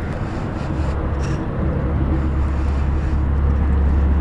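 Wind buffeting the camera microphone: a steady low rumble over an even noisy hiss, growing stronger about a second in.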